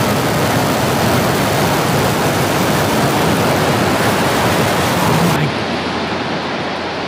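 Roar of Starship SN10's Raptor rocket engine during the landing burn, a loud, steady rushing noise. About five seconds in the hiss cuts off suddenly and the remaining rumble slowly fades.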